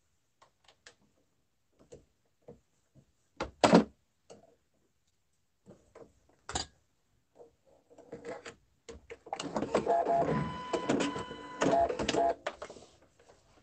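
Scattered light clicks and handling noises, with one sharp knock nearly four seconds in, then an electric sewing machine stitching in one steady run of about three seconds that stops near the end.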